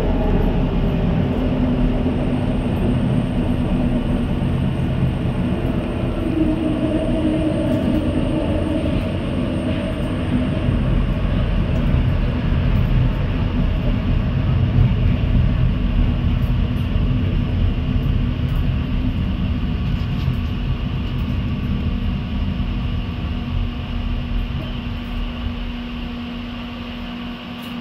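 SkyTrain linear-induction-motor car running along its guideway, heard from inside: a steady rumble of wheels on rail with motor whine that shifts in pitch. The noise eases off over the last few seconds as the train slows at the station.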